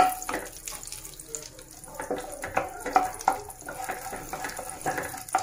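Wooden spatula scraping and knocking around a non-stick kadhai as lumps of ghee melt in it, over a light, steady sizzle.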